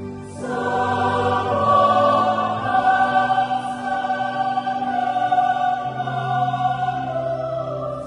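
Church choir singing a slow piece in long held chords; a new, louder phrase comes in about half a second in.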